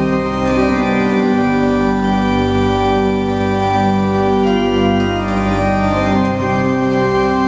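Large church pipe organ playing sustained chords over deep held pedal notes, the chords moving every second or so.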